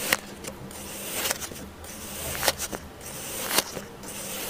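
A block of kinetic sand being sliced, four times: each stroke is a grainy crunch that grows louder and ends in a sharp click, about every second and a bit.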